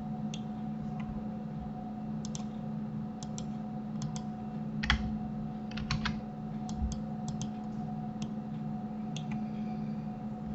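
Irregular clicks of computer keyboard keys and mouse buttons, with a louder click about five seconds in, over a steady low electrical hum.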